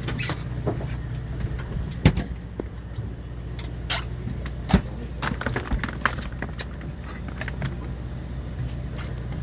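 Steady low hum of the fishing boat's engine, with scattered clicks and rattles and two sharper knocks about two and five seconds in.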